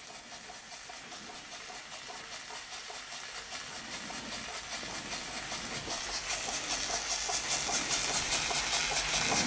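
Weeden No. 38 toy steam engine running slowly under steam: a quiet, even rhythm of exhaust puffs over a steam hiss, growing gradually louder.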